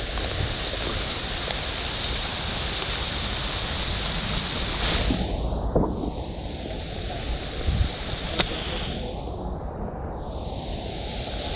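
Steady rushing noise, with a few brief clicks and knocks.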